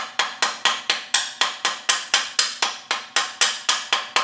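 A metal hammer rapping quickly and evenly on a freshly stick-welded stainless steel exhaust tube, about four sharp blows a second, each ringing briefly.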